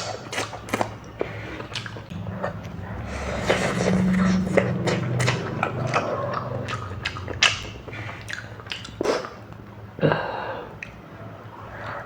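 Close-miked eating sounds: chewing and biting, with a string of sharp wet clicks and smacks throughout and a denser stretch in the middle.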